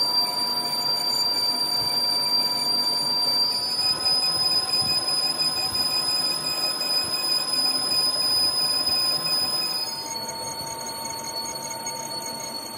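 Metal lathe turning a steel compressor gas-jacket sleeve, the cutting tool peeling off long curling chips with a steady high-pitched whine over a rough cutting noise. About ten seconds in the pitch shifts and the sound gets a little quieter as the cut goes on.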